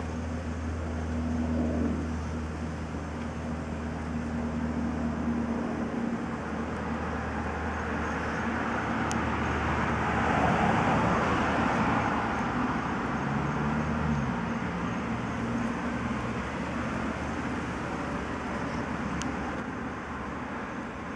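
Road traffic: a vehicle passes, swelling to its loudest about halfway through and then fading, over a steady low hum that stops about two-thirds of the way in.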